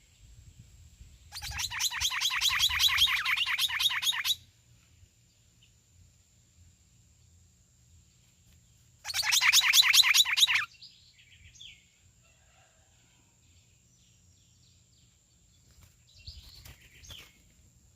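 Trinca-ferro (green-winged saltator) singing: two loud bursts of fast repeated notes, the first about three seconds long and the second shorter, with a few faint calls after them.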